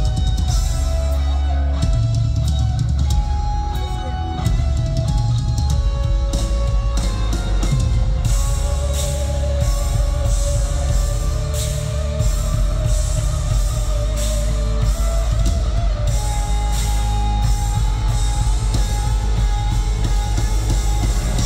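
Live rock band playing loudly: a pounding drum kit and electric guitars holding long notes, with no singing.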